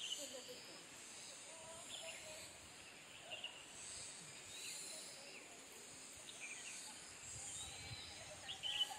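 Countryside ambience: a steady high insect hiss that swells now and then, with scattered short bird chirps and whistles, a quick cluster of chirps near the end being the loudest.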